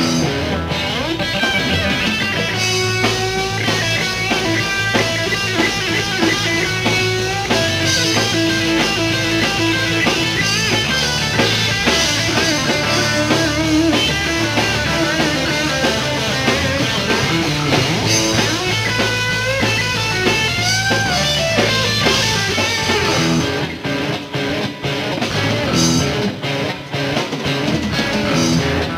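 Live rock band playing an instrumental passage: a Stratocaster-style electric guitar leads with bent, sliding notes over bass and drums. Near the end the band breaks off in short gaps between hits.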